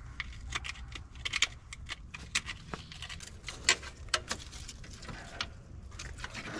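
Scattered sharp metallic clicks and taps of hand tools on the engine as spark plugs are worked at, coming irregularly, with a few louder clicks near the middle.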